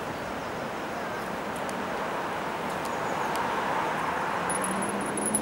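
Steady rushing outdoor background noise that grows slightly louder, with a low steady hum coming in about four and a half seconds in.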